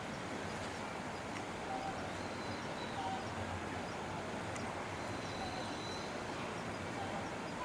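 Steady outdoor background noise with a few faint, short chirps scattered through it.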